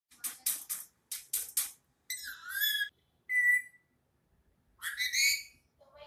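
Indian ringneck parakeet calling: two quick runs of three sharp, shrill squawks, then three longer warbling, whistle-like calls.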